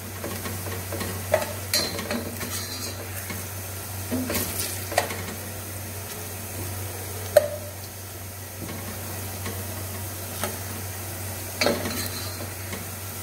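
Sliced onions sizzling in oil in an open pressure cooker as they fry to a light golden colour, stirred with a metal spoon that scrapes and knocks against the pot now and then; the sharpest knock comes about halfway through.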